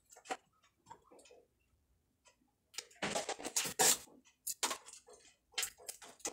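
Small plastic water bottles being handled and lifted out of a cardboard box: light scattered clicks and taps, then a burst of plastic crinkling and rattling about three seconds in, followed by more sharp clicks.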